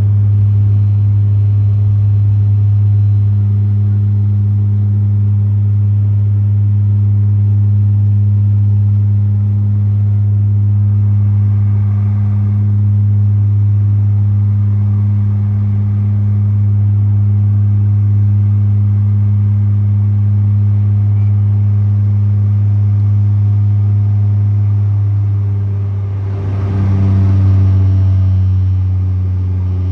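Bombardier Dash 8 Q400's Pratt & Whitney PW150A turboprop and six-bladed propeller, heard from the cabin right beside the engine: a loud, steady, low propeller drone at takeoff power through the takeoff roll and initial climb. A few seconds before the end the drone dips briefly and its pitch shifts.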